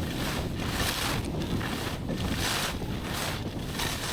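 Blizzard Thunderbird R18 skis carving quick short turns on snow, the edges hissing and scraping in a regular surge about every two-thirds of a second, with wind rumbling on the microphone.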